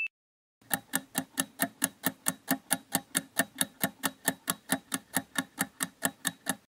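Clock-style ticking sound effect of a quiz countdown timer, about four even ticks a second, starting just under a second in and stopping near the end.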